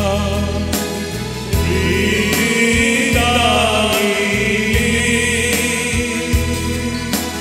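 A Marathi Christian hymn sung by a man over sustained instrumental accompaniment, the melody wavering and the backing chords changing every second or so.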